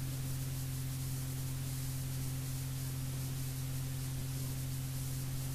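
Steady low hum with an even hiss: the background noise of a 1987 talk recording, with no speech.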